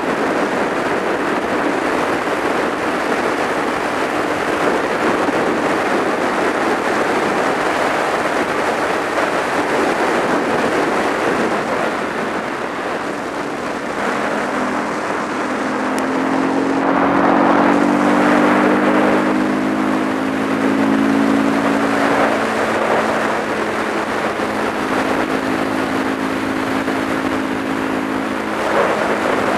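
Supermoto motorcycle cruising on a paved road, with heavy wind rush over the microphone. From about halfway in, the engine's hum comes through more clearly, its pitch rising and falling slightly with the throttle.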